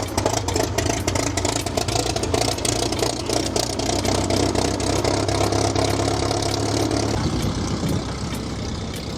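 Light aircraft's piston engine just started after the "clear prop" call, running at idle with a steady pitched drone and a fast regular beat. About seven seconds in it drops a little quieter and the pitched tone fades.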